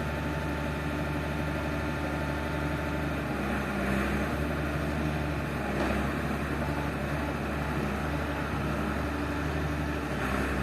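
Excavator's diesel engine running steadily, its note shifting and swelling slightly a few seconds in.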